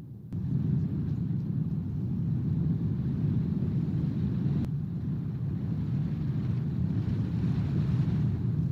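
Wind buffeting the nest-cam microphone: a steady low rumble that starts abruptly just after the beginning, with a single sharp click about four and a half seconds in.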